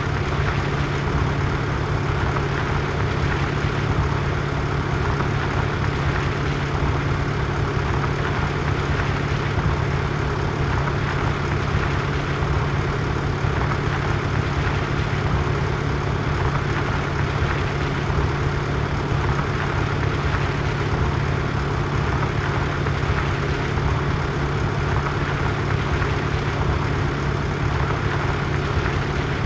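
Tractor diesel engine running steadily at a constant speed, with a strong low hum and no change in pitch.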